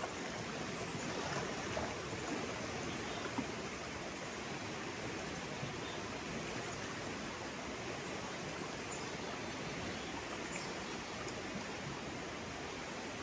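Steady rush of a river's current running over rocks, with a couple of faint clicks in the first few seconds.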